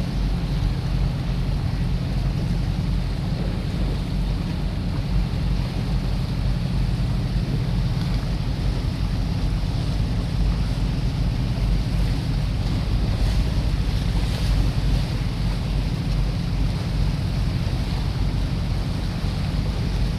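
A boat's engine running steadily under way, a constant low drone, with water rushing past and wind buffeting the microphone.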